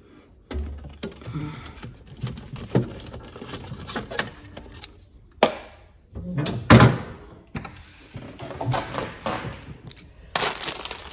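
Rummaging at an open refrigerator: scattered clicks, knocks and rustling as items and the door are handled, with two sharper knocks about five and a half and six and a half seconds in.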